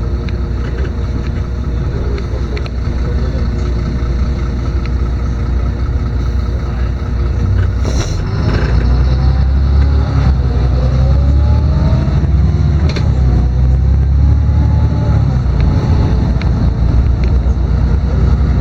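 Interior sound of a LiAZ-6213.22 articulated city bus under way: steady engine and drivetrain drone. A knock comes about eight seconds in, then the running grows louder and a whine rises and falls in pitch as the bus picks up speed.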